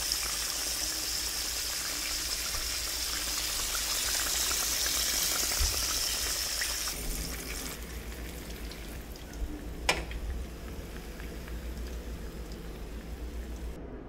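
Breaded salmon pieces deep-frying in a pan of hot oil: a dense high sizzle with crackles, which cuts off about seven seconds in. After it the sound is quieter, with a single sharp click about ten seconds in.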